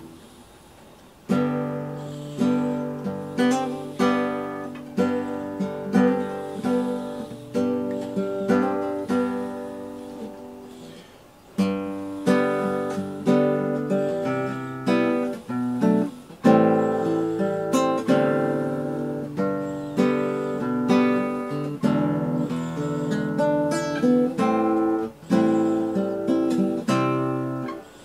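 Background music on acoustic guitar: picked notes and chords at an easy pace, about one or two attacks a second, with a brief lull before each new phrase.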